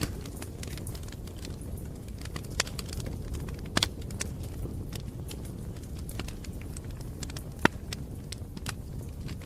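Campfire crackling: a steady low rush of burning with scattered sharp pops, a few of them louder, the loudest near the end.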